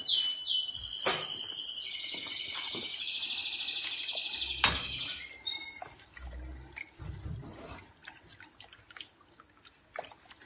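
A songbird singing: a run of quick, high falling chirps, then a long warbling trill that stops about five and a half seconds in. There is a single sharp knock just before the trill ends, then only faint clicks.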